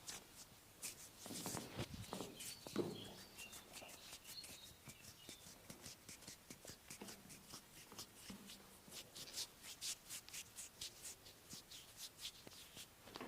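Hands rubbing and stroking over bare skin during a back massage: a quick run of soft brushing strokes, several a second, with a few duller presses in the first few seconds.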